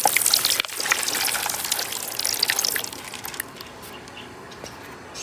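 Liquid poured from a container into a plastic bucket that already holds liquid, splashing steadily. The stream thins and stops about three seconds in.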